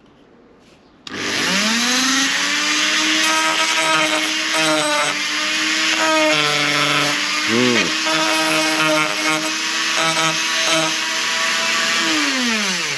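Dremel-type rotary tool fitted with a sanding band, spinning up with a rising whine about a second in, running at high speed with its pitch dipping as it is pressed against the rusty window-frame metal, then winding down near the end.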